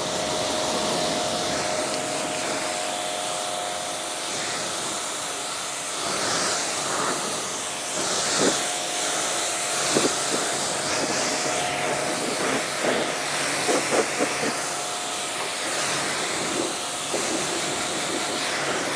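QPT Q5 2500 W electric high-pressure washer running, its spray gun jetting water onto a foam-covered car body to rinse off the shampoo: a steady hiss with a steady tone underneath, and a few short sharp spikes in the second half.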